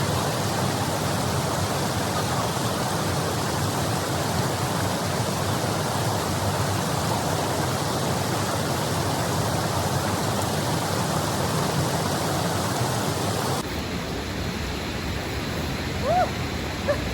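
Waterfall and river water rushing steadily. About 13.5 seconds in, the rush drops abruptly to a slightly quieter, different-sounding stretch, and a brief high-pitched chirp or call is heard near the end.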